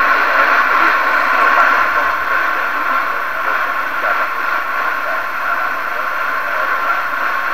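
Johnson Messenger vacuum tube CB radio's speaker hissing with steady receiver static, a thin, narrow-band noise with no station coming through. It eases slightly quieter after the first few seconds.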